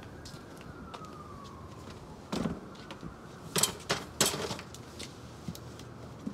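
Tools being handled in a container: a few sharp knocks and a clattering, rustling stretch between about two and five seconds in. Under it, a faint high tone slowly rises and falls near the start.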